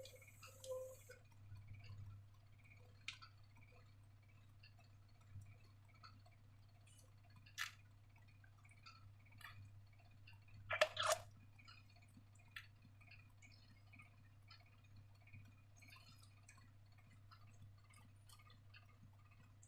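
Faint, scattered clicks and taps of objects being handled, with sharper single clicks about three and seven and a half seconds in and a louder pair of clicks about eleven seconds in.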